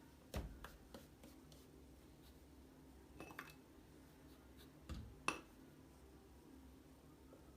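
A few scattered light knocks and taps in a quiet room, the loudest a sharp clink with a brief ring about five seconds in.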